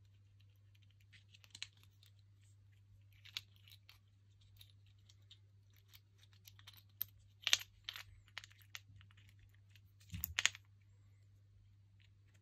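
Small clicks, taps and scrapes of a screwdriver and fingers handling a plastic mains plug while its wires are fastened to the terminals. The louder knocks come in a cluster about seven and a half seconds in and another about ten seconds in.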